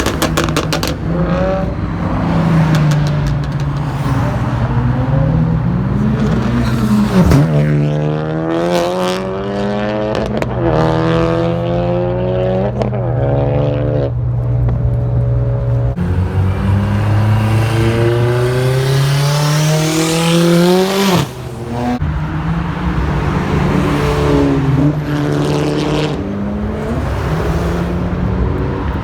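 Performance car engines revving and accelerating hard as cars drive past one after another, the engine pitch climbing through each pull and cutting off suddenly about 21 seconds in.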